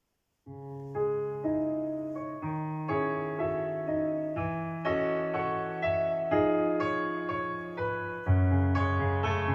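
Piano playing a slow instrumental introduction to a song: a sequence of chords, each struck and then dying away, starting about half a second in, with a deeper bass note coming in near the end.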